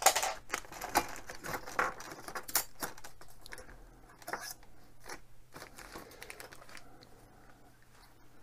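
Off-camera handling of small model parts: a rapid clatter of light clicks and rustles, busy at first and thinning out over the last few seconds, as a longer screw is fetched.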